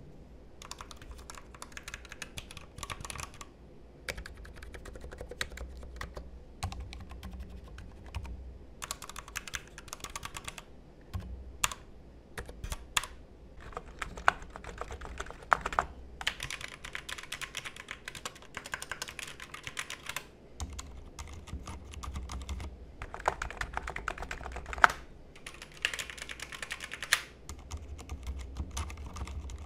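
Bursts of fast typing on keyboards in turn for comparison: a keyboard with Kailh optical red switches, then a white keyboard, and near the end the mStone Groove T SF with silent red linear switches. The key strokes come as dense runs of clicks a few seconds long, with short pauses between runs.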